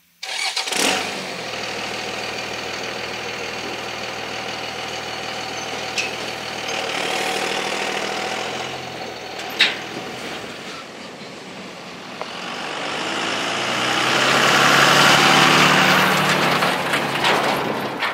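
Pickup truck engine running at a steady idle, with one sharp clank about halfway. The truck then pulls away towing a flatbed trailer, and engine and ground noise rise to their loudest about two-thirds of the way in before fading.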